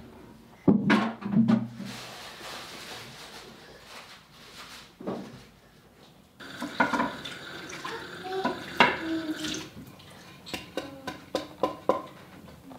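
Kitchen tap running into a sink while dishes and a wooden cutting board are washed, with repeated clinks and knocks from about six seconds in. A short loud bump comes about a second in.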